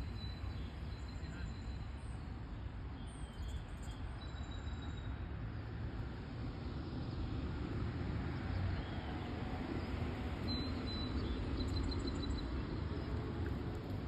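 Outdoor lakeside ambience: a steady low rumble with faint, high bird chirps now and then, including a quick run of chirps about eleven seconds in.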